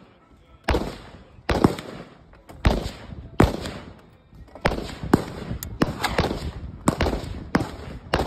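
Gunfire at an outdoor shooting range: about a dozen sharp shots at uneven intervals, some in quick pairs, each with a short echo.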